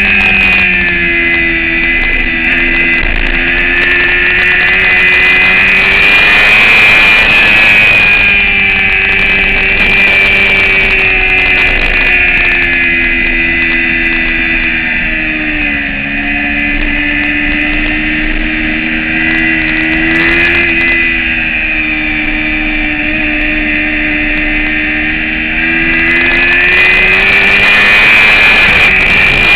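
Motorcycle engine at high revs under hard riding on a racetrack, with the pitch climbing and falling as the rider shifts and brakes. There is a clear drop in pitch about eight seconds in, a dip near the middle, and a fall again near the end.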